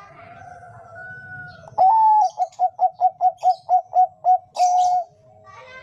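Zebra dove (Bangkok-type perkutut) cooing: a long opening note, then a quick run of about nine short notes, ending on a held note. Fainter chirps from other birds come before it.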